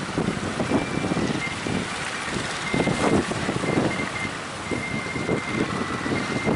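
Strong wind buffeting the microphone in gusts, with a faint high tone that breaks on and off.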